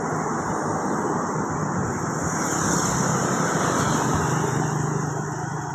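A bus passing close by on the road: engine and tyre noise swelling to a peak a few seconds in, then fading as it goes away. No horn sounds.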